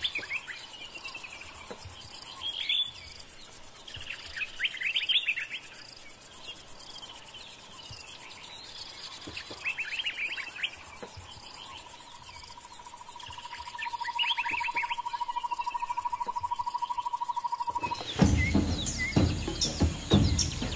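Bush ambience: a steady high insect chirring, with birds calling in short bursts every few seconds. Past the middle a steadier, lower trill joins in. Near the end it changes abruptly to a louder outdoor sound with bird calls and knocks.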